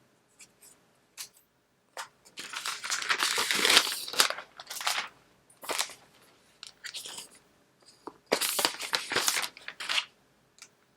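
iPad Air box packaging being opened and handled: paper and plastic crinkling and tearing in two longer stretches, a couple of seconds in and again near the end, with short clicks and taps between.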